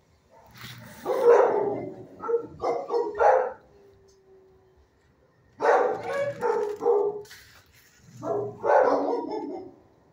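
Dogs in shelter kennels barking in three bouts of rapid barks, each lasting a second or two.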